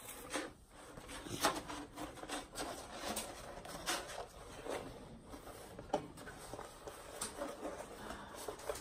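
Rolled diamond painting canvas with a clear plastic cover being unrolled and pressed flat by hand: irregular crinkling and crackling of the plastic film, with many short sharp crackles.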